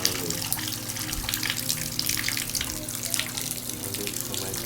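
Water running from a newly installed Glacier Bay single-handle tub and shower valve, splashing steadily, with a steady hum underneath.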